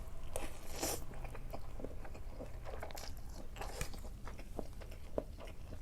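Close-miked mouth sounds of a person eating: chewing and biting with many small wet clicks and occasional crunches, irregular and fairly steady throughout.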